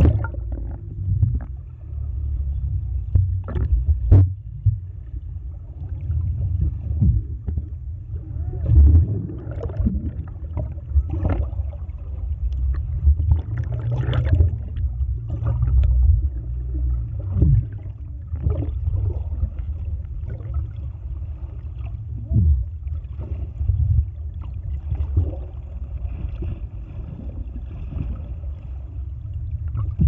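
Underwater sound heard through a submerged camera: a steady, muffled low rumble with bubbling and scattered short clicks and knocks throughout.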